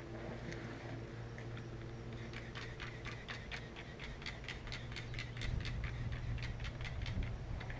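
Hand spray bottle pumped rapidly at a tire, a quick run of short squirts about five a second, starting a couple of seconds in and stopping near the end.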